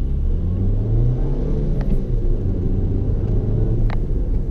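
Car engine and road rumble heard from inside the cabin as the car pulls away. The engine note rises over the first second and a half, then holds steady. Two light clicks come about two and four seconds in.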